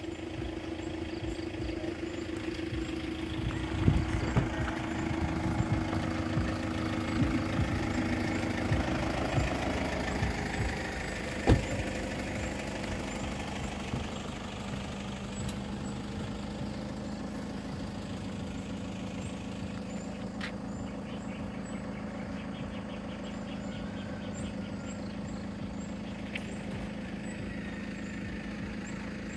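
Motorcycle engine running steadily at low speed. Its note drops to a lower, even hum about ten seconds in, and there is one sharp knock near the middle.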